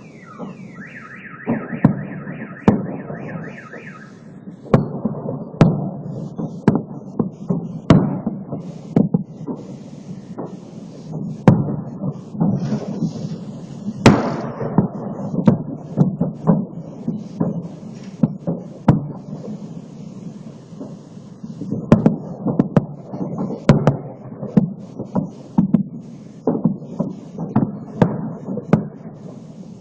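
Fireworks salute going off: dozens of sharp bangs, irregular and at times several a second, over a low rumble of echoing booms. A car alarm warbles through the first few seconds, and about halfway through there is a brief falling whistle.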